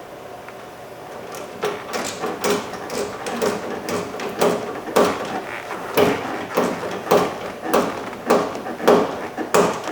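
Hand socket ratchet turning a door handle mounting bolt, clicking in a steady rhythm about twice a second from about a second and a half in as the bolt is run down.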